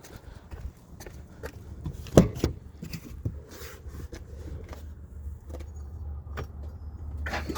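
Footsteps and scattered knocks and clicks of someone moving about a truck, with one loud thump about two seconds in. A low steady hum comes up over the last couple of seconds.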